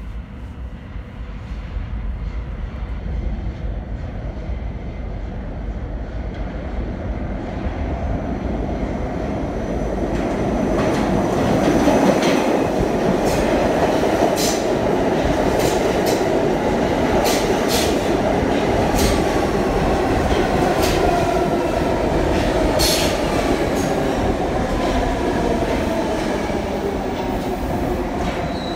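R68 subway train approaching through the tunnel and running into the station: a rumble that builds over the first dozen seconds, then the cars passing with sharp, clattering wheel clicks. In the second half a whine falls steadily in pitch.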